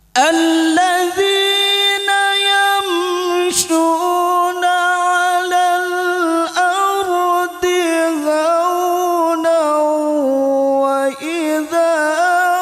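Melodious Qur'an recitation (tilawah) by a solo reciter's voice, unaccompanied. The voice sustains long, ornamented notes with wavering turns. It comes in sharply right after a breath.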